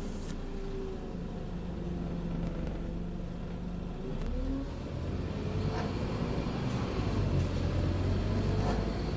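Scania OmniCity N230UD double-decker bus heard from inside the passenger saloon: the diesel engine runs steadily, then picks up about halfway through, its pitch rising and the drone growing louder as the bus accelerates.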